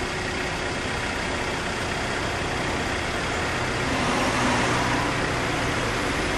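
Road traffic: a line of cars moving slowly past, their engines running, a steady noise that grows a little louder about four seconds in.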